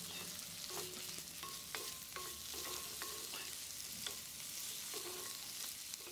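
Hot oil in a kadai sizzling quietly as water is poured over frying raw mango pieces, with a steady hiss and a scatter of small pops and bubbling plinks.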